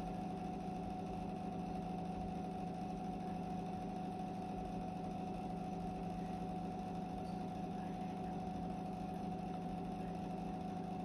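Steady mechanical hum with a thin, steady higher tone above it, unchanging throughout.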